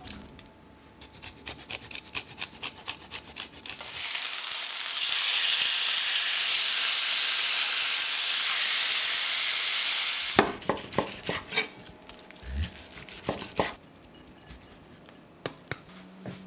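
Light rapid clicks of stirring in a stainless steel pan as cooked fusilli goes into roasted vegetables, then about six seconds of steady loud sizzling from butterflied chicken breasts pan-searing in butter with thyme and garlic. A few knocks and clatters of the pan follow the sizzle.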